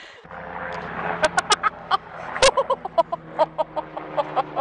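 Chickens clucking, many short calls a few times a second, over a steady low hum.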